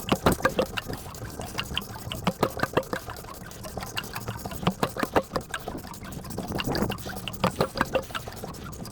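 A 5.3 L LS V8 being turned over by hand to check that every valve moves: a run of irregular sharp clicks and clacks from the tool and the rotating engine.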